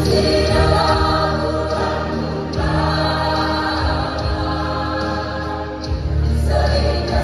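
A choir singing, many voices together, over sustained low notes underneath.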